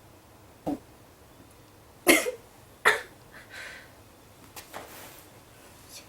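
A teenage girl forcing out burps after swallowing water: a small one first, then two loud, short ones about a second apart, followed by fainter throat sounds.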